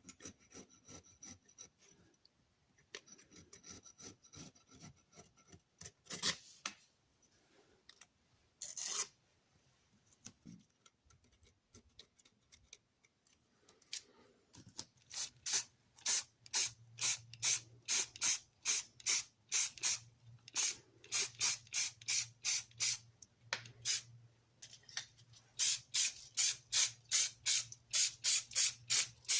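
Cast-iron sole of a Stanley No. 51 spokeshave rubbed back and forth on sandpaper to true it flat. A few scattered scrapes come first. About halfway through they turn into a steady run of rasping strokes, roughly two to three a second.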